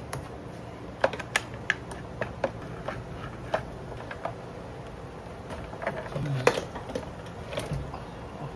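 Irregular metallic clicks and clinks of hand tools and fasteners being worked loose during starter removal, with a cluster of sharp clicks about a second in and a louder knock about six and a half seconds in.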